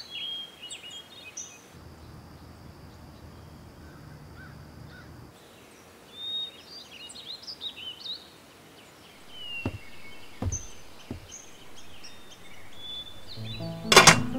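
Small birds chirping and twittering over a faint outdoor ambience, with a few low thuds midway. Just before the end a smartphone is set down on a table with a sharp knock, and music begins.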